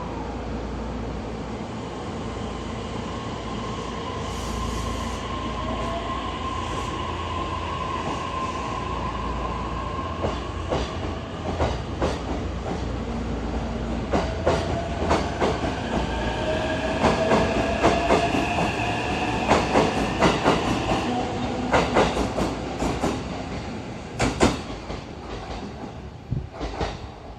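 Electric commuter train pulling out of a station: a steady rumble with a motor whine that slowly rises in pitch as it gathers speed, and a run of wheel clicks over the rail joints, growing loudest about two-thirds of the way in, then fading away near the end.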